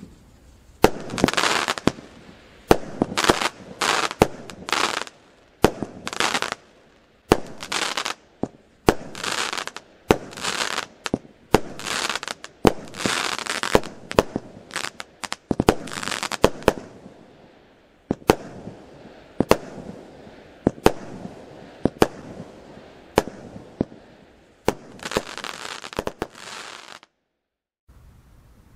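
Consumer fireworks battery (cake) firing shot after shot: sharp bangs one to two a second, each followed by a brief crackling hiss from the bursting shell. It goes silent for a moment near the end.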